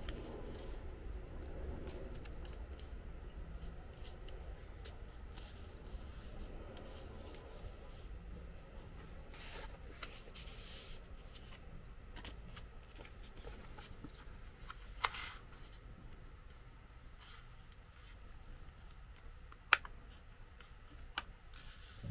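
A sheet of origami paper handled and folded by hand: soft rustling and crinkling as it is turned, unfolded and creased, with a few short sharp ticks in the second half, the loudest about twenty seconds in.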